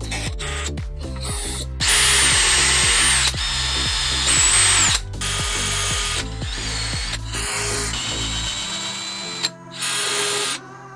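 Power drill running in several short bursts of a second or so each, its high motor whine dropping off as each burst ends, over background music.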